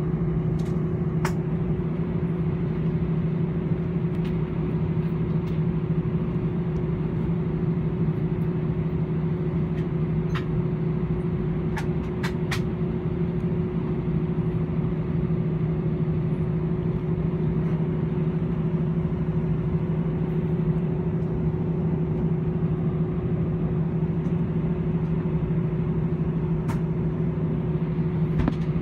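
Steady hum inside the cabin of an Airbus A318-111 taxiing, its CFM56 engines at idle, with two steady low tones and a few faint clicks.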